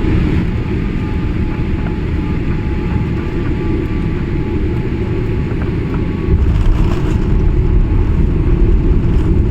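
Airliner cabin noise: a steady, loud low rumble of engines and rushing air, which gets louder about six seconds in.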